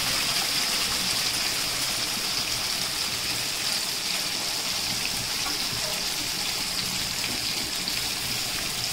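Mustard paste frying in hot oil in a kadai: a steady sizzle that eases a little over time.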